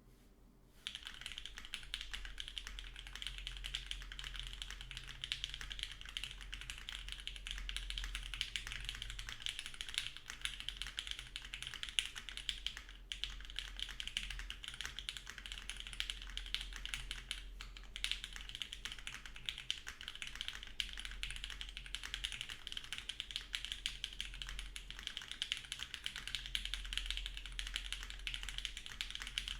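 Continuous fast typing on a Bakeneko60 mechanical keyboard with Cherry Retooled Black linear switches lubed with 205g0 and fitted with TX films, an FR4 plate and GMK Noel keycaps: a dense stream of key clicks starting about a second in.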